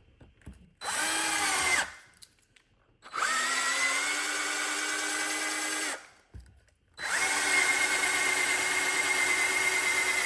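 Electric drill spinning a 1/4-inch, 12-inch auger bit in three runs: a short burst, then a run of about three seconds, then a longer run starting about seven seconds in. The motor's pitch rises quickly at each start, then holds a steady whine.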